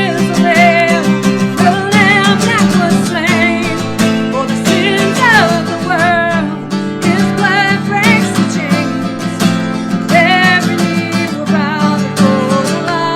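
Acoustic guitar strumming with a voice singing along, the voice wavering in pitch on held notes.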